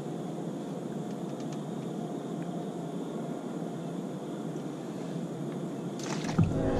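A steady low mechanical drone, like a distant engine, under open-air ambience. About six seconds in there is a single thump as a foot comes down on the boat's deck.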